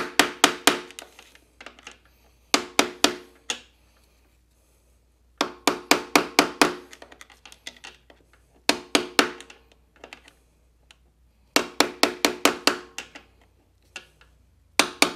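Hammer driving a steel punch against the lock-washer tab of a dirt bike's countershaft sprocket nut, bending the tab flat against the nut so it cannot back off. Six quick bursts of sharp, ringing metal taps, several strikes in each, with short pauses between.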